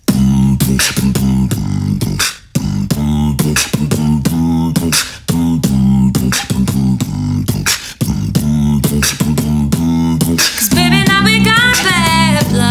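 Beatboxing: a steady beatboxed drum beat of sharp kick and snare sounds over a low bass line, with a brief break a little after two seconds. A woman starts singing near the end.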